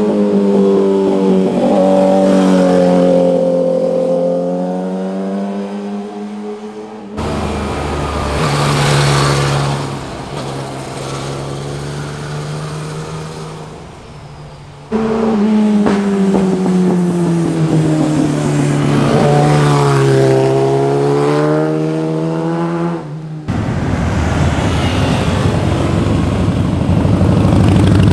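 Several motorcycles passing one after another on a twisting road, cut together. A faired sport bike's engine note slides down in pitch as it goes by, another bike passes and fades, a third slides down and then climbs again, and near the end a Harley-Davidson V-twin cruiser with chrome twin exhaust pipes goes by with a loud low rumble.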